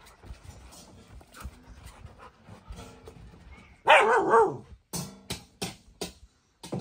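A dog vocalising: after a few seconds of soft scuffling, one loud wavering bark-like yowl about four seconds in, then four or five short sharp barks or yips.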